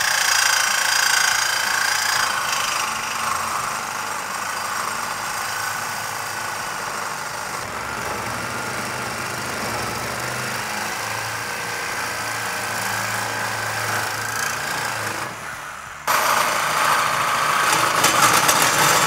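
Reciprocating saw (Sawzall) cutting through the steel tubes of a Harley-Davidson Sportster frame, a loud, steady buzz of the blade in the metal. It stops briefly near the end and starts again on a second frame tube.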